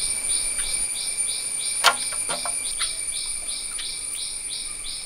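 Insects calling in a fast pulsing rhythm, about four pulses a second, over a steady high-pitched whine, with a few brief sharp clicks.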